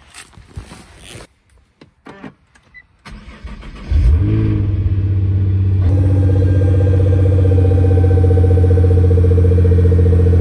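A few clicks and knocks, then the Nissan GT-R R35's twin-turbo 3.8-litre V6 cranks briefly and starts about four seconds in with a short flare of revs. About two seconds later it settles into a loud, steady idle.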